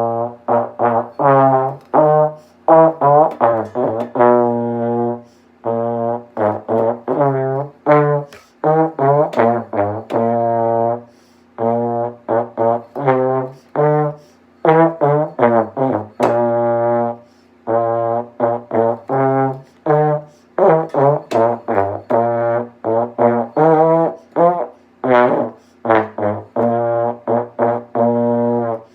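A brass instrument playing a beginner band-book melody: a string of separate, fairly short notes in phrases with brief breaks between them.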